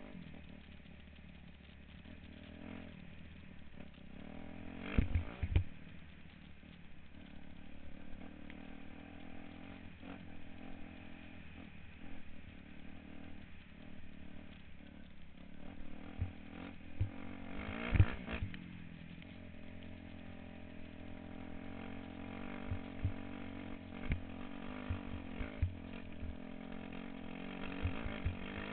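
Dirt bike engine running steadily while riding over a rocky gravel trail, with sharp knocks and rattles from the rough ground. The loudest knocks come about 5 and 18 seconds in.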